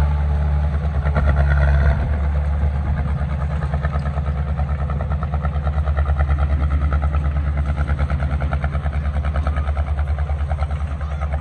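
Heavy construction machine's diesel engine running steadily with an even, fast pulsing beat. About two seconds in, a higher-pitched part of the sound stops and the engine eases slightly in level.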